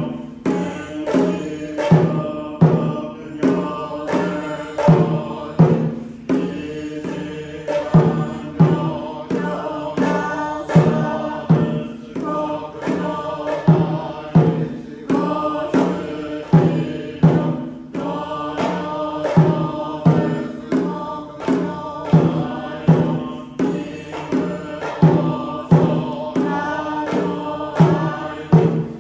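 Congregation chanting a Buddhist sutra in unison, with a sharp accent about once a second.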